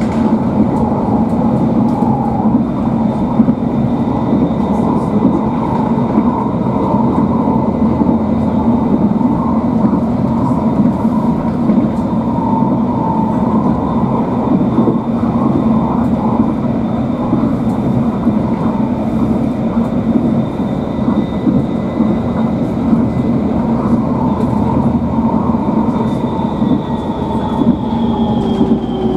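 Tram running on its line, heard from inside the car: a steady rumble of wheels on rail under a high electric whine, which falls in pitch near the end as the tram slows.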